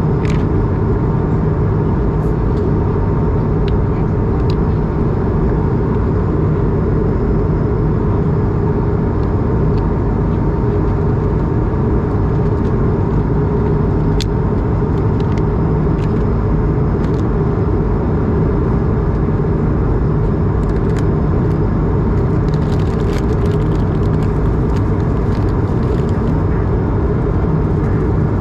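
Steady in-flight cabin noise of an Airbus A220: the drone of its Pratt & Whitney PW1500G geared turbofans and the rush of air past the fuselage, heard from a window seat beside the engine. A faint steady tone runs through it.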